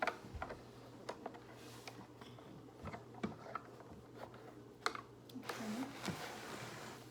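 Small toy pieces clicking and tapping together as they are handled, a scatter of light, irregular clicks.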